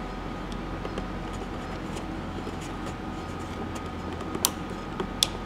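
A few sharp clicks, the two loudest about four and five seconds in, from a hand working a control on the chassis of a vintage Admiral portable tube TV that will not power up. A steady low hum runs underneath.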